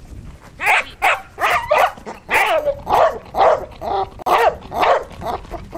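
Doberman barking in a rapid series, about two barks a second, starting about half a second in. It is barking at a burlap bite sack being waved in front of it, worked up by prey drive during bite-work training.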